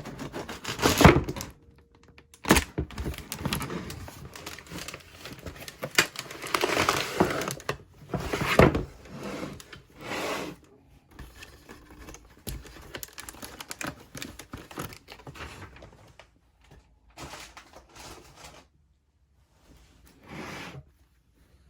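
Unpacking a camping stove set: packaging crinkling and rustling, with sharp hard knocks as parts are handled and set down. The knocks and crinkling are busiest in the first half and thin out to a few brief bursts later.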